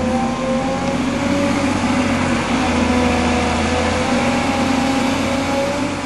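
Excavator's diesel engine working under load as the bucket digs wet clay, a steady engine note whose pitch dips slightly and recovers a couple of times.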